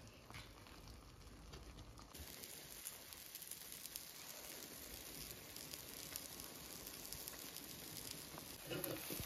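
Omelette egg mixture frying in a pan: a faint, steady sizzle with small crackles, turning brighter about two seconds in. A brief soft knock near the end.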